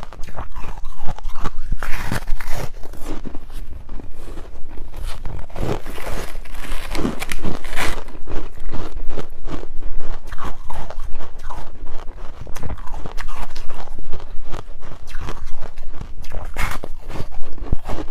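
Ice being bitten and chewed close to the microphone: a dense, continuous run of crisp crunches.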